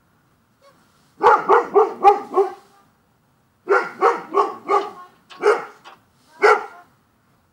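Dog barking: two quick runs of four or five barks, then two single barks.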